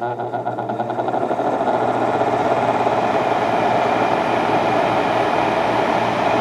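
SMC SP-18 pedestal fan just switched on at medium speed. Its motor hum and blade whoosh build up over the first couple of seconds, with a quick pulsing that blends into a steady rush of air. Right at the end comes a click as it is switched off.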